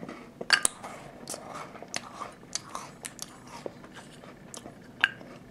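Mouth chewing a crisp butter shortbread cookie: a string of small, sharp crunches and clicks at irregular spacing, a few a second.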